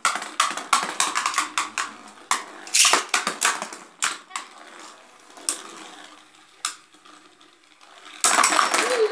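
Two Beyblade Burst spinning tops, Victory Valtryek and Xeno Xcalius, clacking against each other and rattling against the walls of a plastic basin in a run of rapid sharp clicks and knocks. The hits thin out in the middle, then a dense flurry of collisions comes near the end as both tops burst apart.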